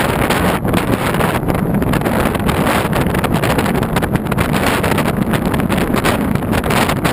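Steady rush of wind across the microphone over the road and engine noise of a moving car.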